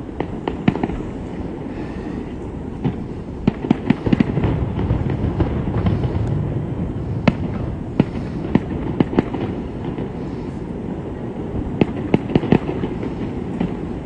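Aerial fireworks bursting: a string of sharp bangs at irregular intervals, bunched in quick clusters, over a steady low rumble.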